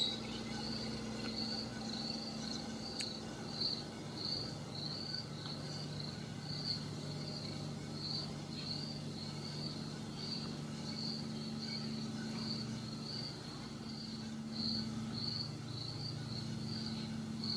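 A cricket chirping steadily in an even rhythm of about two to three short high chirps a second, over a steady low hum.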